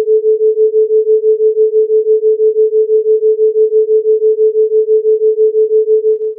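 Steady 432 Hz pure sine tone with a theta-rate beat, its loudness pulsing about six or seven times a second. It fades and stops near the end.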